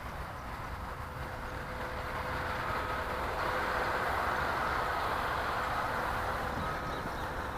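Electric ducted fan of a Freewing Stinger 64mm RC jet running in flight, a steady whooshing whine that grows louder over the first few seconds and then eases slightly, with wind rumbling on the microphone.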